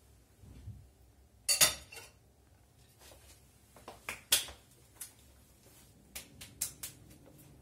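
Sharp clinks of a metal knife against a plate, loudest as a quick cluster a second and a half in. Scattered lighter clicks and taps follow as a bottle is handled.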